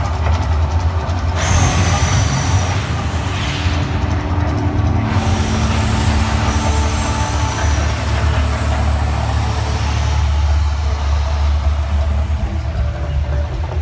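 Mirage volcano eruption show: gas-fed fire bursts hiss and whoosh from about one and a half seconds in, easing off after about ten seconds, over a steady deep rumble.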